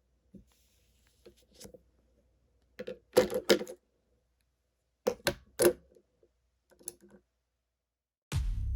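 Scattered sharp clicks and clattering knocks of small hard objects, coming in small clusters with gaps between, the loudest run of three or four strikes about three seconds in. Just before the end a deep, loud electronic tone begins.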